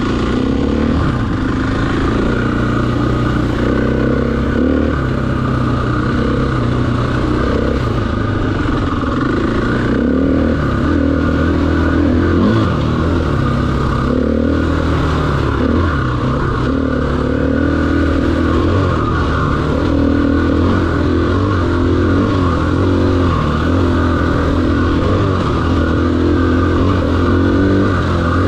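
KTM 500 EXC's single-cylinder four-stroke engine running under way, its note rising and falling again and again with the throttle.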